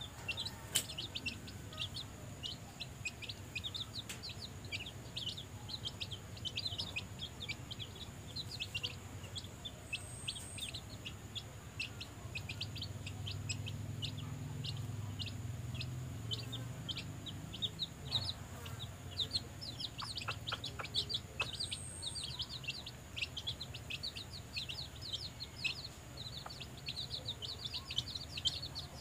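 Chicks peeping continuously, many short high peeps a second, while they peck at feed around their mother hen, who clucks softly and low for a few seconds midway.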